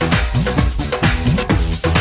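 Upbeat electronic dance music from a Hindi film song, with a fast, regular drum beat of about four hits a second.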